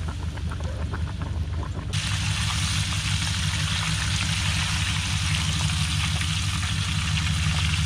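Catfish fillets frying in hot peanut oil in a saucepan: a steady sizzling hiss that gets louder about two seconds in, over a low steady rumble.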